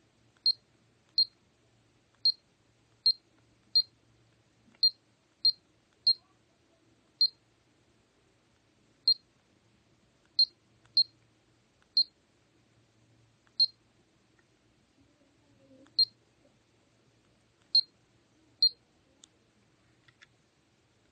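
Taffware HUMI H24 aromatherapy diffuser giving about seventeen short, high beeps at uneven intervals. Each beep is the unit acknowledging a button press.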